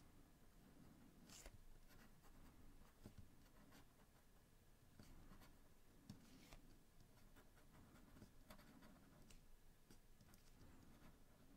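Kenzo by Stypen fountain pen's medium steel nib, turned upside down, writing on 160 g Clairefontaine DCP paper. The nib makes faint, irregular scratching strokes as the words are written out.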